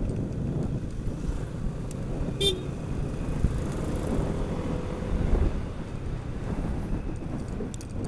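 Riding noise from a Yamaha NMAX scooter on a rough road: a steady low rumble of engine, wind and road, with scattered small knocks. A brief horn toot sounds about two and a half seconds in.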